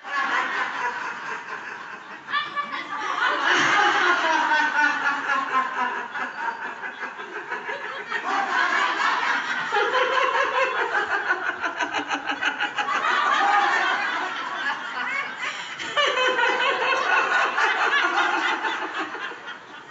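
A group of women laughing together in a laughter-yoga exercise, in several long bouts with short breaks between them.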